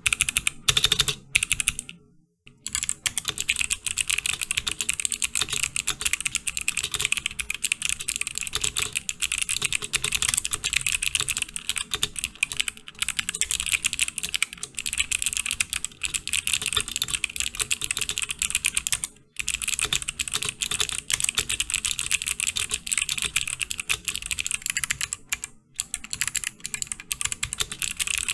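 Fast, continuous typing on a Cannon Keys Practice 65 v2 custom keyboard fitted with Kailh BOX Navy clicky switches: a dense clatter of sharp keystroke clicks, broken by three short pauses.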